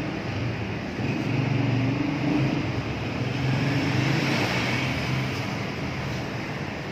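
A steady low mechanical hum over a wash of noise, growing louder about a second in.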